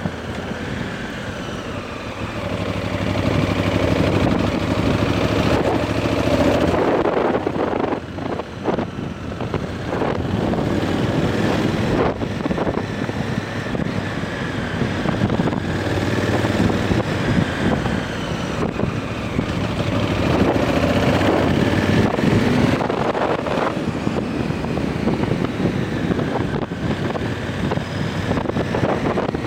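Honda Africa Twin CRF1000L's parallel-twin engine through its stock exhaust, heard while riding, the note rising and falling with the throttle and swelling louder twice. Wind rushes over the camera microphone.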